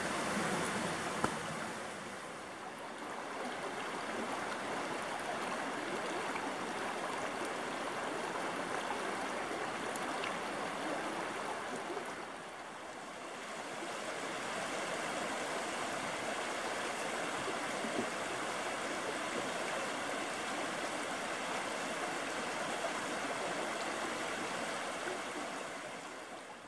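Shallow mountain creek flowing over rocks: a steady rush of running water that dips slightly twice and fades out at the end.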